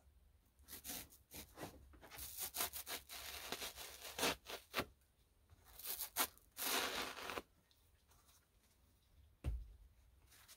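Knife blade sawing and scraping through a soft block in a run of rasping strokes, then a single dull knock near the end.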